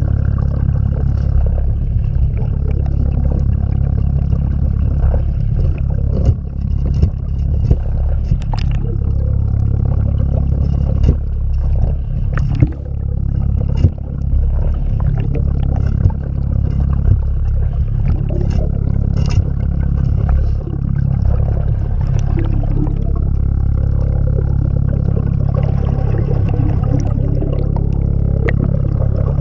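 Steady low hum with scattered short clicks and knocks throughout.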